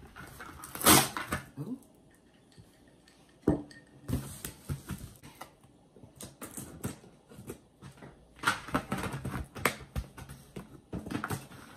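Cardboard box and packaging of a Cricut cutting machine being opened by hand: irregular rustling, scraping and handling noises, with a loud rustle about a second in and a sharp knock a few seconds later.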